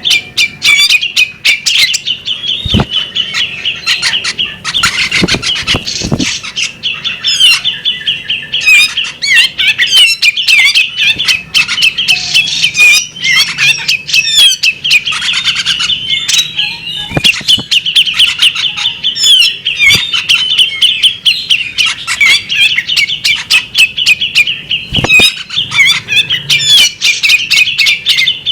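Female bearded magpie-robin singing without pause: a dense, fast stream of chirps, whistles and trills, with a few dull low thumps along the way.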